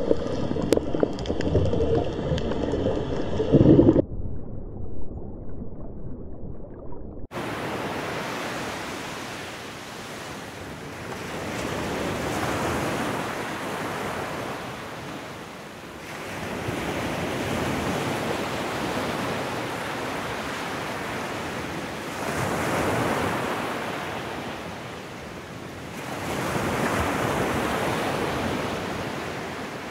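Ocean surf on a sandy beach, waves rolling in and breaking in swells about every five seconds. Before it, for the first few seconds, a muffled underwater sound, followed by a short hush.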